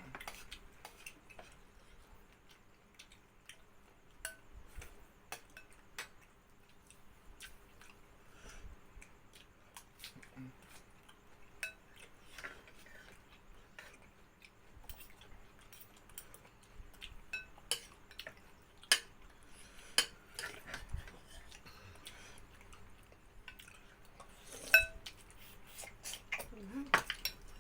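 Spoons and forks clinking and scraping against bowls and plates during a meal: scattered light clicks throughout, with a few louder ringing clinks in the second half.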